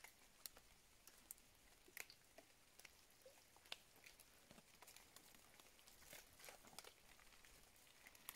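Near silence with faint, scattered, irregular ticks of light rain pattering.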